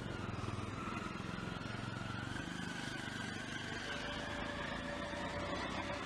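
Steady city street traffic noise, with a faint, held whine running through it.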